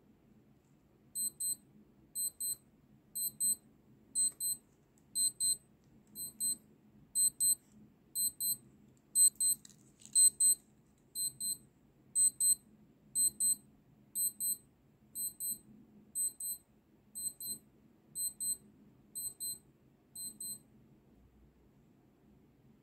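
NAVIFORCE NF 9197L digital-analog watch's alarm beeping. It gives a high double beep about once a second for roughly twenty seconds, then stops near the end.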